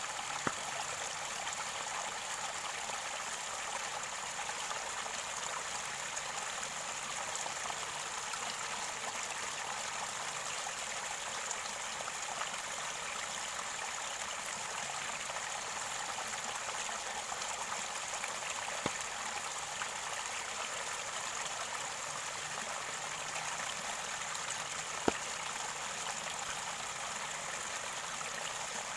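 Mountain stream water gurgling and trickling steadily at its source. A few brief sharp clicks stand out, the loudest about 25 seconds in.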